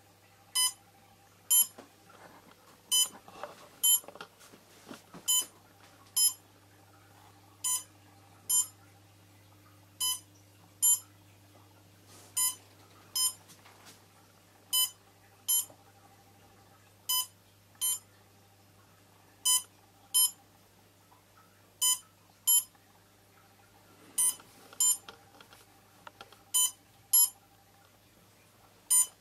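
Electronic beeper on a powered-up quadcopter giving short, high, sharp beeps in pairs, the pairs repeating about every two and a half seconds, over a faint steady hum.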